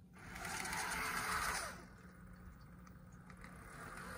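Electric motor and gear drive of a Rivarossi 4-6-6-4 Challenger model steam locomotive whirring as it runs along the test track. It is loud for about a second and a half, then quieter with faint clicks of the wheels on the rails, building again near the end.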